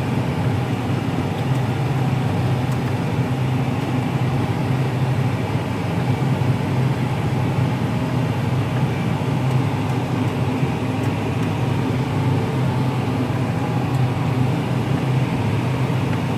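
Case IH Magnum 340 tractor's diesel engine running steadily under load while pulling a plough, with an even, unchanging hum.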